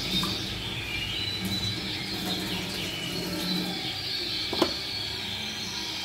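Yorkshire canaries chirping and singing in short high phrases while tap water runs into a steel sink. A single sharp knock a little past halfway.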